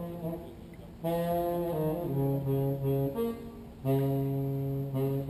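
Solo saxophone playing a slow melody of held notes. It picks up again about a second in after a brief lull and ends on a long low note.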